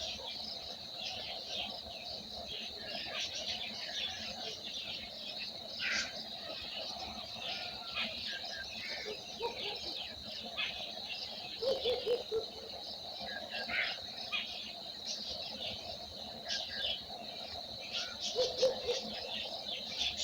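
Many small birds chirping and calling over a steady high-pitched drone, with short bursts of lower, rapid notes about twelve seconds in and again near the end.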